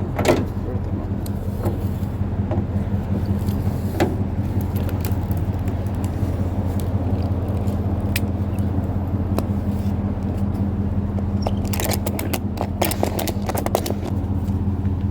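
Car running with a steady low engine hum, a few scattered clicks, and a quick run of rattling clicks near the end.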